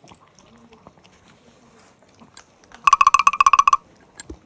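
Small dog eating dry kibble from a glass bowl, with faint crunching and clicking. About three seconds in, a loud, rapid run of about a dozen high-pitched beeps lasts just under a second, followed by a single thump.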